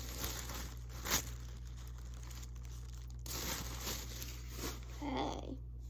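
Wrapping paper being torn and crumpled as a gift-wrapped item is unwrapped, with one loud rip about a second in, then softer rustling.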